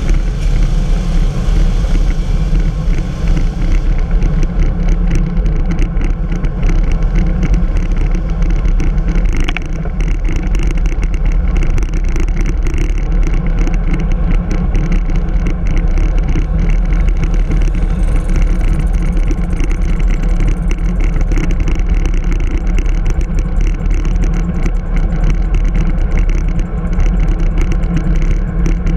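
Steady wind rush and road rumble on a handlebar-mounted GoPro's microphone while riding a bicycle at speed.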